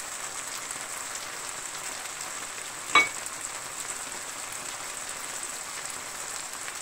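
Rice with monkfish and prawns simmering in a wide pan as the last of the stock cooks off, bubbling and sizzling steadily with fine crackles. One louder pop comes about three seconds in.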